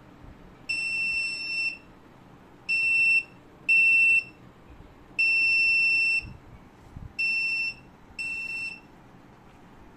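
Orico 6228US3 drive docking station's beeper sounding six high, even-pitched beeps, long-short-short then long-short-short. It is the dock's error signal that the offline clone cannot proceed, which the owner traces to the target SSD being smaller than the 500 GB source drive.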